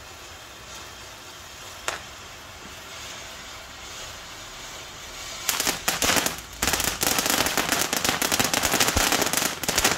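Ground fountain firework spraying sparks, first with a steady hiss. About five and a half seconds in it breaks into loud, dense, rapid crackling.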